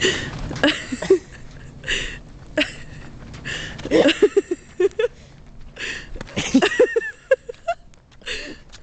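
People laughing in short breathy bursts, with wheezy gasps and indistinct vocal sounds; the laughter comes in quick runs of pulses about four seconds in and again a little before the end.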